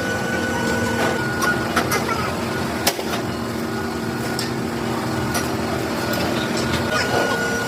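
Metalworking machine running steadily with a constant whine and hum, with scattered sharp clicks and ticks, one louder knock about three seconds in.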